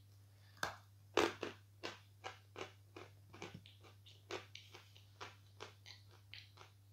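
A bite into a lump of 'Fresh' edible chalk, soft and airy, that breaks off easily with a crisp crack, then steady crunchy chewing of the chalk, about two or three crunches a second.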